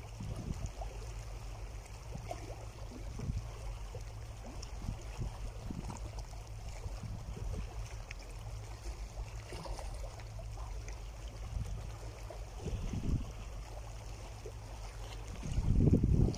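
Small sea waves washing and lapping over the shore rocks, under a steady low wind rumble on the microphone, with a louder rush near the end.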